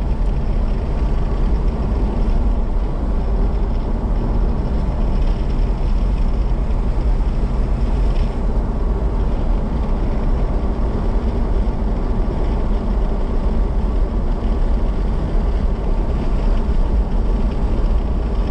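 Steady engine and road noise of a car driving at a constant speed, with a deep, even rumble. A faint engine hum shows through for a few seconds around the middle.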